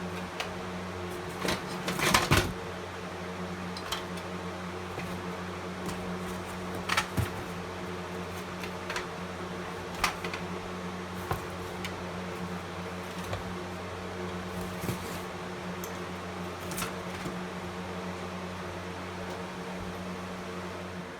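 Steady electrical room hum, with scattered clicks, knocks and a brief clatter about two seconds in as hard fire-alarm devices are handled and set down.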